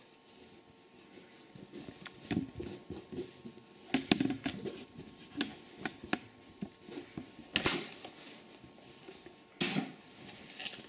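Fabric being handled and smoothed by hand on an ironing board: soft rustling with a scatter of sharp taps and clicks, and a short louder burst of noise near the end.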